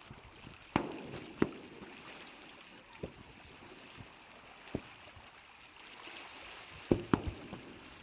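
Fireworks bursting over the lake, a series of sharp bangs at irregular intervals with a quick run of three near the end, over a steady hiss.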